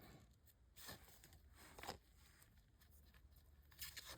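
Near silence, with a few faint, brief rustles of trading cards and pack wrapper being handled, about a second in, again at two seconds, and near the end.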